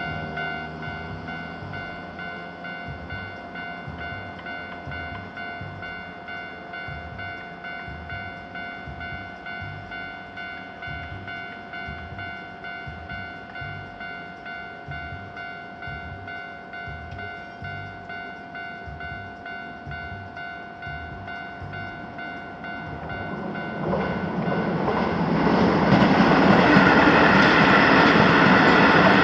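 Japanese railway level crossing alarm ringing in a steady repeating ding-ding, about two strokes a second. About 24 seconds in, a Keio Line electric train arrives and passes, its rumble and wheel noise quickly growing loud and covering the bell.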